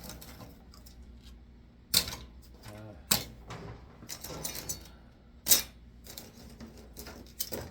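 Small scrap parts clattering as they are handled and set down, with sharp knocks about two, three and five and a half seconds in and lighter clicks between.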